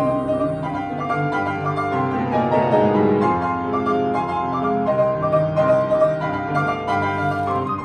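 Solo piano playing the instrumental closing bars of a chanson waltz, with no voice over it.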